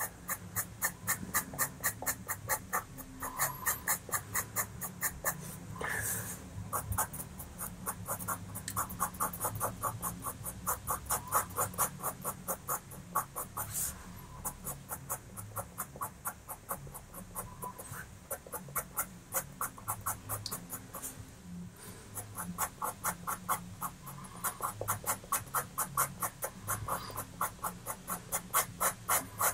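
Pastel pencil scratching on pastel paper in rapid short strokes, about five a second, as fur hairs are flicked in. The stroking stops briefly a few times.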